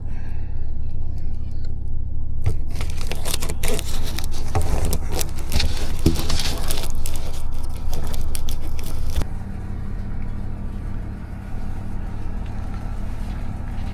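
A steady low rumble of an idling engine, with scraping, clicking and rattling from about two and a half seconds in that stops abruptly about nine seconds in.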